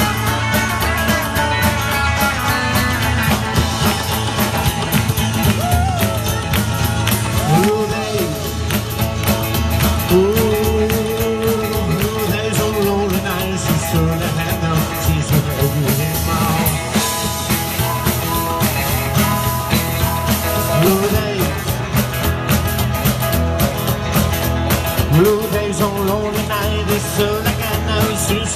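Rock and roll band playing live: upright bass, drums, acoustic and electric guitars, with a lead line that bends up and down in pitch over the steady beat.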